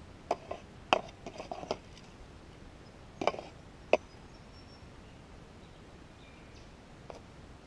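Hands working through dry gravelly soil and leaf litter, making short scrapes and clicks while digging for a small shallow target: a quick cluster in the first two seconds, two sharper ones a little past three and four seconds in, and one faint one near the end.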